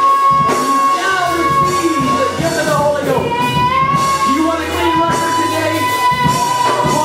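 Church worship music with a voice singing long held notes over a band with bass and a steady beat.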